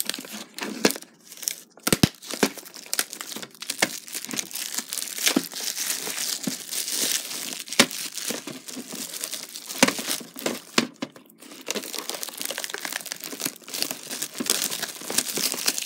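Clear plastic shrink-wrap being torn and peeled off a VHS tape case, crinkling and crackling throughout, with a few sharp clicks.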